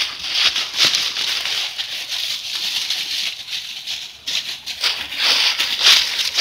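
Footsteps through dry fallen leaves, an irregular crisp rustling with a short lull about four seconds in.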